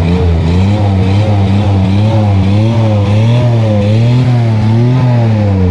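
A vehicle engine running with its revs swelling up and down gently, about once a second.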